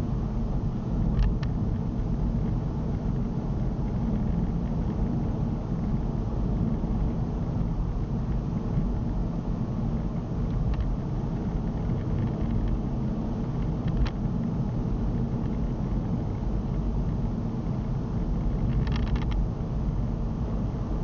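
Car interior driving noise: a steady low rumble of tyres and engine heard from inside the cabin. A few faint ticks or rattles are scattered through it, with a short cluster near the end.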